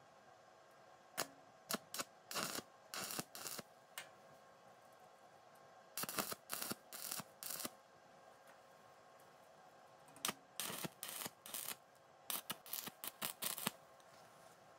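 Stick (arc) welding electrode striking and crackling in short sputtering bursts as tack welds are laid on a steel square-tube frame. Three clusters of crackle: about a second in, about six seconds in, and about ten seconds in.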